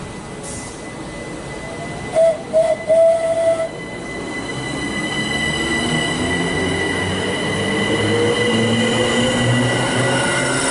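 Southern electric multiple unit accelerating away, its traction motors giving a whine that rises steadily in pitch as it gathers speed. About two seconds in come three short, loud high toots.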